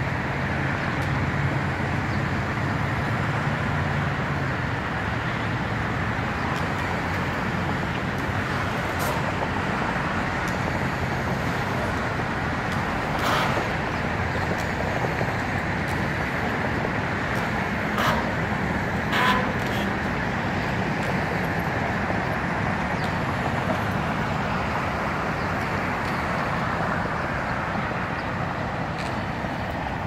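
Steady hum of road traffic, with three short sharp knocks in the middle stretch.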